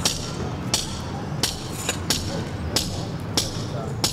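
Sharp, evenly spaced clicks, about three every two seconds, over a faint hiss.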